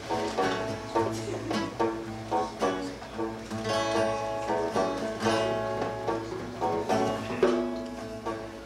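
Banjo and acoustic guitar playing an upbeat instrumental tune, plucked notes in a steady rhythm.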